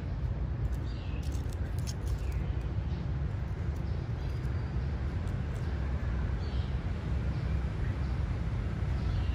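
Steady low outdoor background rumble, with a few faint, short high chirps about a second in, near two seconds and again later on.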